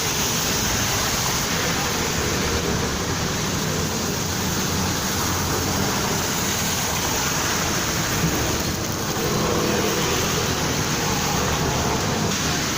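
City bus running at a roadside stop amid steady street traffic: a continuous hiss of engines and tyres over a low engine hum.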